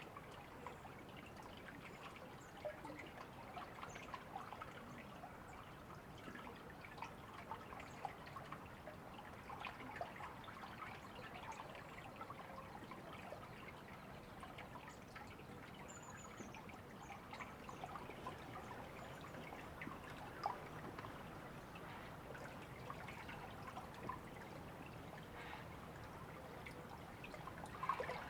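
A river's running water trickling and babbling steadily, with many small splashes.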